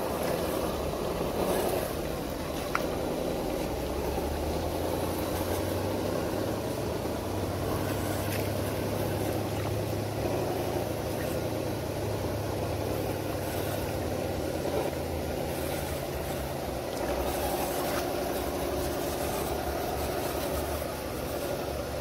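Electric motors and gearboxes of RC scale crawler trucks whirring steadily as they drive through a shallow rocky stream, over a continuous rush of running water.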